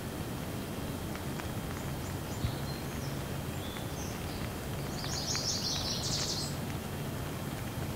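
Heavy rain pouring steadily onto trees and grass. A bird calls a few times over it, with a quick chirping trill about five to six and a half seconds in.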